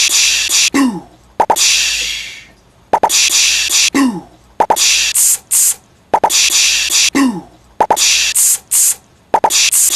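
A person beatboxing with the mouth: sharp clicks and pops, long hissing cymbal-like 'tsss' sounds, and a falling 'bloop' glide. The pattern repeats as a loop about every three seconds.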